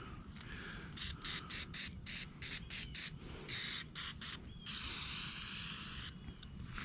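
Aerosol can of Easy-Off oven cleaner spraying: a string of short hisses, then one longer hiss of about a second and a half near the end.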